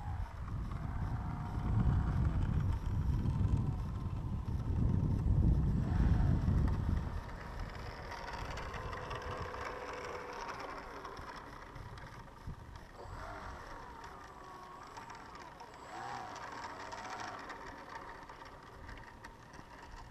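Wind buffeting the microphone, a loud low rumble for about the first seven seconds, then fainter, with faint wavering whistle-like tones over it.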